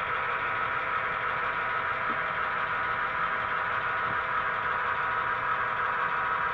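Diesel engine sound from a model Conrail locomotive's onboard sound system, running steadily as the locomotive shoves a covered hopper slowly along the track.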